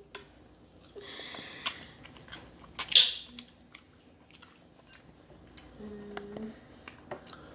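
Close-up eating sounds of someone chewing seafood boil, with scattered small clicks and smacks and one sharp, loud noise about three seconds in. A short steady hum follows near six seconds.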